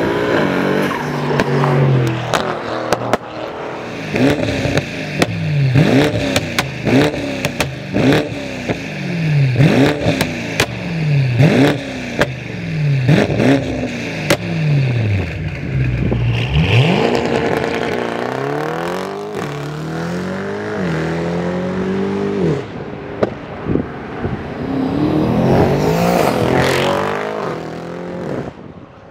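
Tuned Mercedes-AMG GT63 S 4-door's twin-turbo 4.0 V8, with catless downpipes and a custom titanium exhaust, revved about eight times in quick succession with sharp pops as the revs fall. Then it accelerates hard away, the engine note climbing, dropping once at an upshift, and climbing again near the end.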